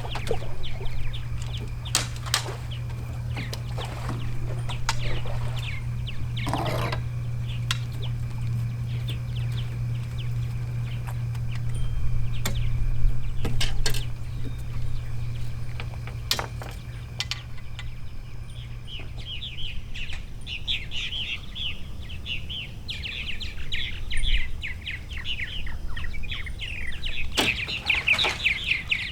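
A bird chattering in quick repeated chirps from about two-thirds of the way in, over a steady low hum that fades out at about the same time, with scattered clicks.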